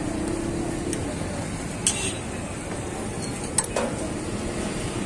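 Metal spatula scraping and clinking on a steel griddle plate while spreading mayonnaise over flatbreads, with two sharp metallic clicks about two and three and a half seconds in, over a steady hum of street traffic.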